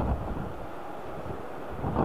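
Airbus A380 jet engines at taxi idle, a steady distant hum with a faint whine. Wind buffets the microphone at the start and again briefly near the end.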